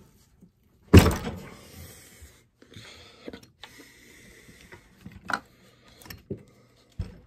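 A sharp knock about a second in, then a scatter of lighter clicks and taps: a chainsaw's metal handlebar being handled and fitted against the saw's body, with the engine not running.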